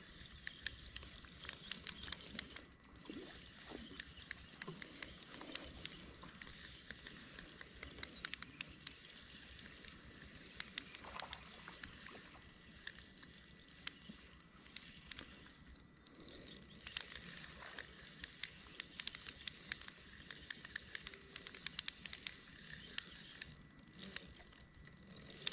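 Faint, irregular clicking of a small spinning reel being cranked to bring in a hooked fish, over a faint hiss.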